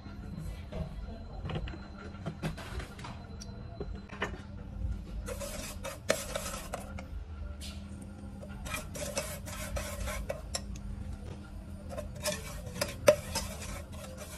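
Metal ladle stirring and scraping around the bottom of an aluminium pot, in bursts of quick strokes with sharp clinks against the metal, the loudest clink near the end. A steady low hum runs underneath.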